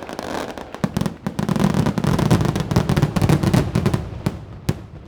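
Fireworks going off: a dense run of crackling pops and bangs over a low rumble, thinning to two separate sharp bangs near the end as the level falls away.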